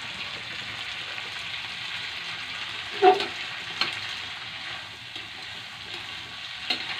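Bean sprouts and dried anchovies sizzling as they are stir-fried in a wok, with a metal spatula scraping and knocking against the pan. The loudest knock comes about three seconds in and rings briefly; smaller knocks follow just before four seconds and near the end.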